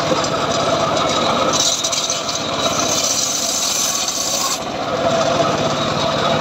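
Homemade sawmill saw running and cutting through johar wood with a steady, rasping noise. The cut turns harsher and hissier from about one and a half to four and a half seconds in.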